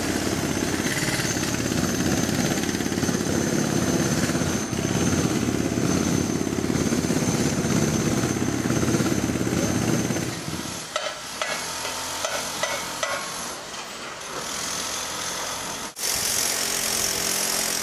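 Construction-site machinery hammering rapidly and steadily. It drops away about ten seconds in, leaving quieter site noise with scattered knocks, and near the end a harsher, higher machine noise starts suddenly.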